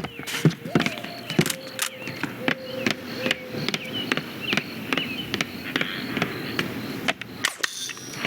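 Film sound-effects track: a busy run of sharp clicks and knocks at uneven intervals, with short chirps and a faint held tone beneath.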